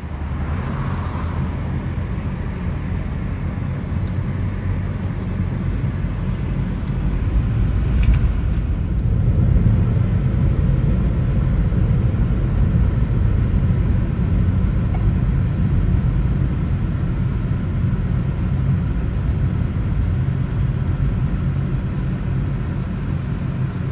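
Steady low rumble of a car's cabin and road noise heard from inside the car, getting a little louder about eight seconds in.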